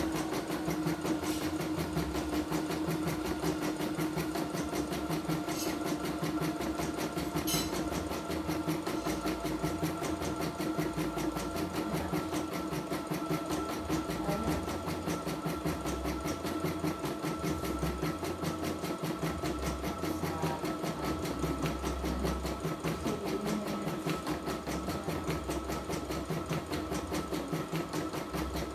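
CNY E960 computerised embroidery machine stitching out a design: the needle running at a fast, even rhythm over the steady hum of its motor.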